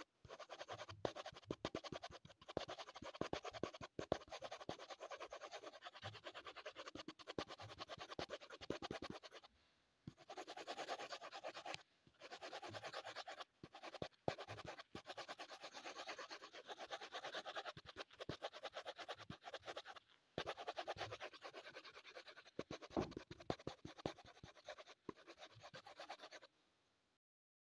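Colored pencil shading on drawing paper: fast back-and-forth scratching strokes in long runs with a few brief pauses, stopping shortly before the end.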